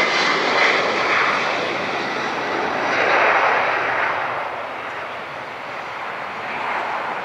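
Boeing 787 Dreamliner's twin jet engines running at taxi power as the airliner rolls away, a steady jet rush that eases a little about halfway through.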